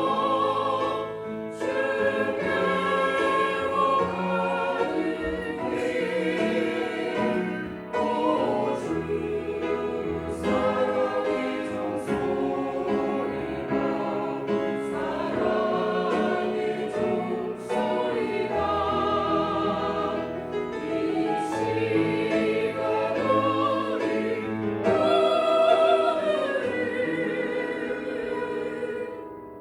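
Church choir singing a sacred anthem, many voices together in sustained phrases with vibrato.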